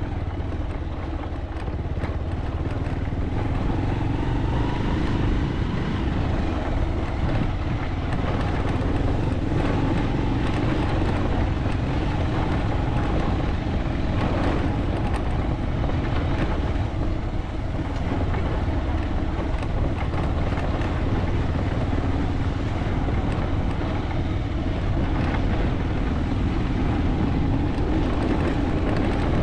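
Motorcycle engine running steadily at low speed on a ride along a dirt track, with a few brief rattles now and then from the rough surface.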